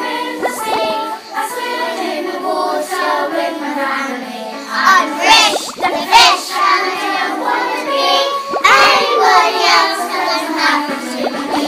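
Young children singing a song together, with the bending, wavering pitch of a group of five-year-old voices.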